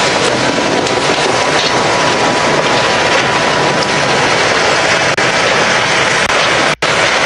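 Tender and passenger cars of a steam excursion train rolling past close by: a loud, steady noise of wheels on rail. The sound cuts out for an instant near the end.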